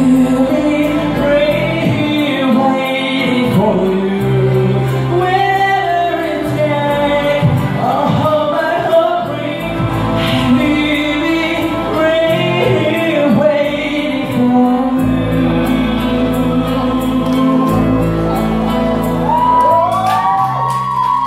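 A man singing a song into a microphone, amplified through loudspeakers, over instrumental backing music with a steady bass line.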